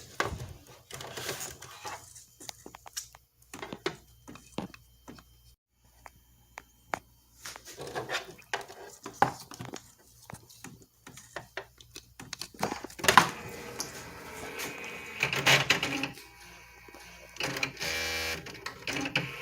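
Clicks and knocks of handling and a plug going in. Then the Brother GX-6750 electronic typewriter switches on and its carriage and print mechanism motor runs with a buzzy whirr, in two runs a second or so apart.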